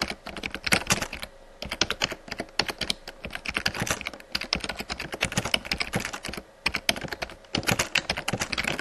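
Rapid, irregular keystrokes of keyboard typing, used as a sound effect for on-screen text typed out letter by letter, with a few brief pauses.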